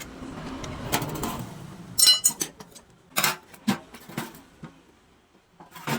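Metal tools and parts being handled on a workbench: shuffling at first, then several sharp metallic clinks and knocks about two to four seconds in.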